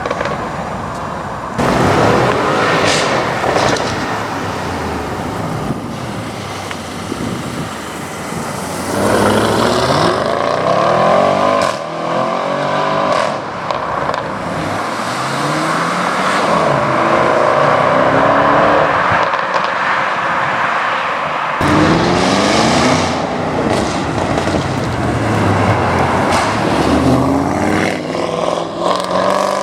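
Audi RS6 engines accelerating hard, one car after another. The pitch climbs and drops back with each gear change.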